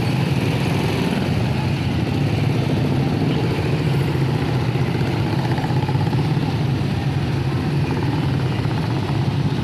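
Motor tricycle's motorcycle engine running at a steady speed: a low, even drone with road noise, with no revving or stops.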